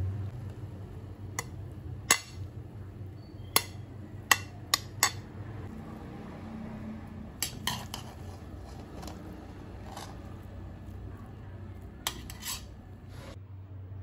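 A metal spoon clinking and knocking against a pan as cooked rice is tipped in and stirred, in a dozen or so sharp strikes, some in quick runs of two or three, over a steady low hum.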